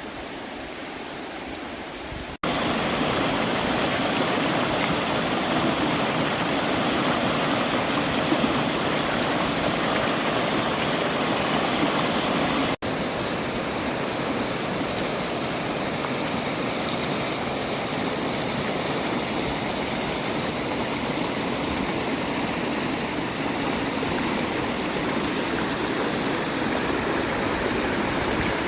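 Waterfall water pouring and rushing over rocks: a steady, even rush. It cuts in louder a couple of seconds in, and after a brief break about halfway it carries on slightly quieter.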